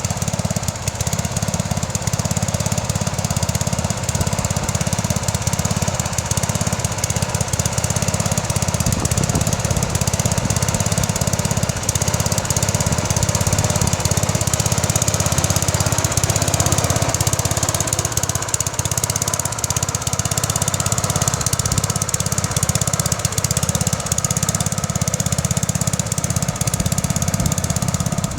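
Bolens 1050 garden tractor's engine running steadily with a rapid, even firing beat as the tractor pulls a plough.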